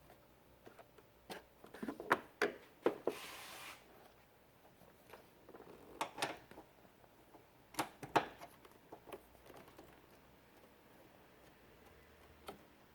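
Quick-connect couplers of air-conditioning gauge hoses clicking and knocking as they are snapped onto the car's service ports, with a short hiss about three seconds in.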